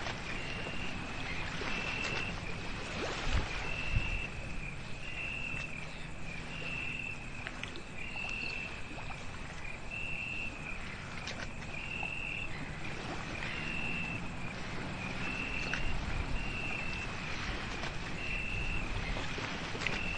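Night-time outdoor ambience: a steady low rumble under a short, high-pitched chirp that repeats evenly about every second and a quarter, the way a calling night insect does. Two faint knocks come about three and four seconds in.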